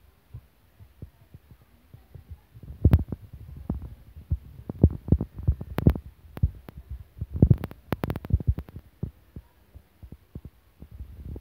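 Irregular low thumps and knocks, scattered unevenly and thickest through the middle, with a few sharper clicks among them.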